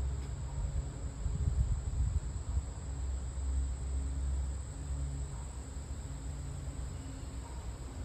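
Steady high-pitched insect drone from the summer woods, over a low rumble that swells and eases.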